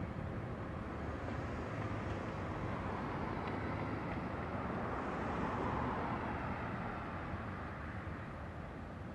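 Airbus A320neo's twin turbofan engines at takeoff thrust as the jet climbs away, a steady roar that fades a little near the end as it recedes.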